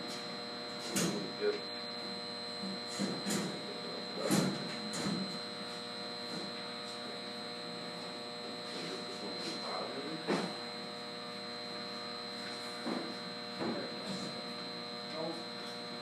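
Steady electrical hum with a high, thin whine from the room's electrical equipment, broken by scattered short clicks and knocks of hand tools working inside a metal electrical cabinet, the loudest about a second in and again around four seconds in.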